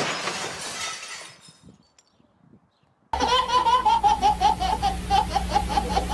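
A sudden crash right at the start that fades out over about a second and a half, then, about three seconds in, a baby laughing hard in rapid pulses of about five a second.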